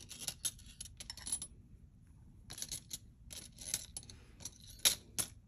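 Metal bangle bracelets clinking and sliding against each other and the tabletop as they are handled: scattered light clicks and scrapes, with one sharper clink near the end.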